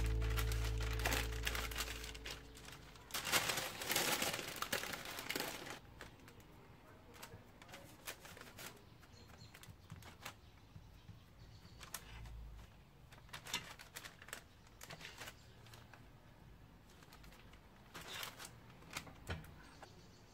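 Baking paper crinkling and rustling as hands roll dough into a log inside it, loudest a few seconds in. After that, quieter handling with a few short light taps, and background music fading out at the start.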